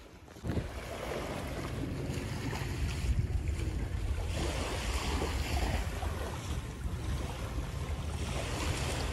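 Wind rumbling on the microphone, with small sea waves washing onto a sandy beach in slow swells of hiss.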